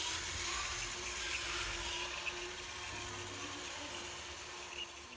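Radio-controlled model dump truck's electric drive whirring steadily with a hiss, fading toward the end.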